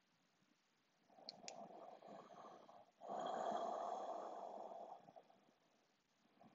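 A person breathing slowly and audibly through the nose in a yoga breath pattern: a soft breath in, then a louder, longer breath out starting about three seconds in, with silent pauses before and after marking the held pause at the end of the exhale.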